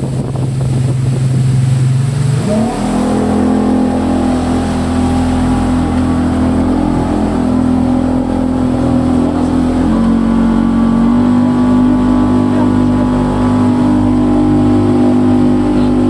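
SJX jet boat's engine heard from inside the cabin, running at a steady low speed, then revving up sharply between two and three seconds in and holding a higher, steady pitch. It steps up slightly again a bit past the middle.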